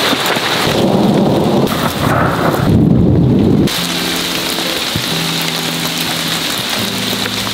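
Heavy rain falling with loud rolling thunder that cuts off abruptly about three and a half seconds in. Steady rain continues after that, with soft music of held low notes starting over it.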